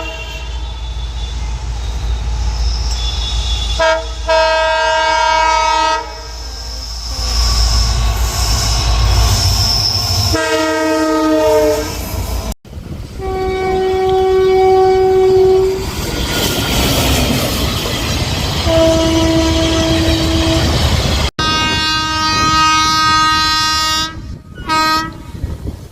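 Indian Railways locomotive horns sounding in a series of separate blasts from different trains, each blast one to two seconds long, over the rumble and wheel clatter of trains passing.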